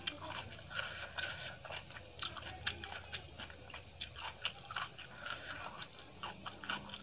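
Close-miked chewing of a mouthful of food: irregular wet clicks and little crunches from the mouth, several a second.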